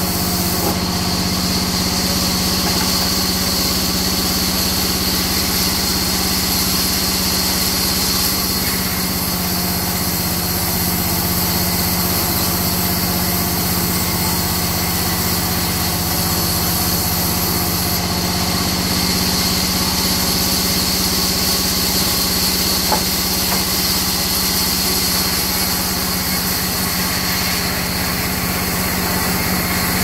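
Sawmill band saw running steadily as it rips a crooked mahogany log lengthwise: a constant machine hum under a high hiss of the blade cutting through the wood.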